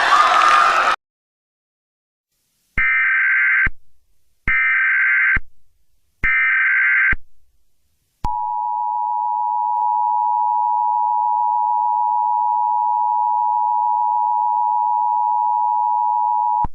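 Emergency Alert System broadcast: after a second of loud noise that cuts off, three short bursts of SAME digital header data screech, each about a second long, then the two-tone EAS attention signal sounds, held steady for about eight seconds.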